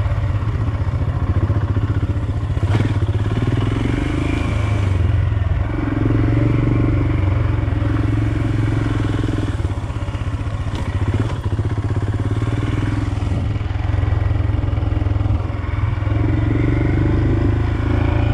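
Royal Enfield Himalayan's single-cylinder engine running as the motorcycle is ridden at low speed, the engine note swelling and easing off several times with the throttle. A single sharp knock comes about three seconds in.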